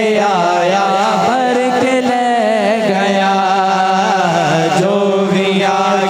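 A naat, an Urdu devotional poem, sung by a solo voice in long ornamented phrases that waver and bend in pitch, over a steady held drone underneath.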